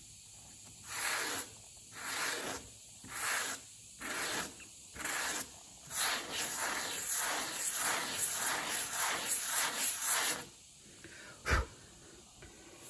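Hand sanding with an 80-grit sanding block on cured epoxy putty at the corner of a fiberglass trunk. Slow rasping strokes come about a second apart, then a run of quicker back-and-forth strokes. A single sharp knock follows near the end.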